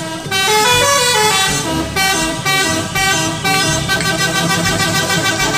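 Heavy trucks driving past in convoy with their horns sounding, a run of pitched horn notes that step up and down in pitch over a steady low engine rumble.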